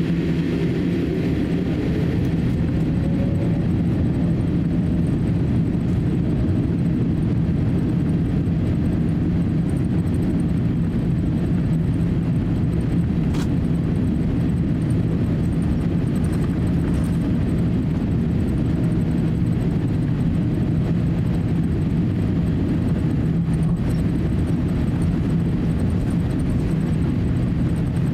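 Cabin noise inside a Boeing 787-8 taxiing, heard from a seat over the wing: a steady low engine rumble and hum with no rise in power.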